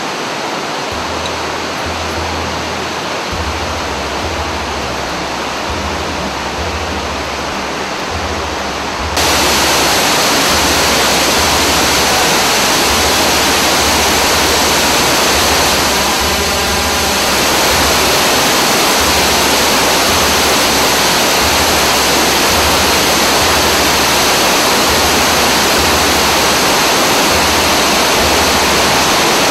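Waterfall plunging over rocks into a stony mountain stream: a steady rush of falling water, which grows clearly louder about nine seconds in.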